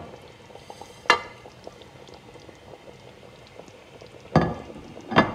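Spicy gravy simmering in a steel pot with faint bubbling pops, and three sharp knocks, the first with a short ring, as a bowl of ground spices is tipped and knocked against the pot about one, four and five seconds in.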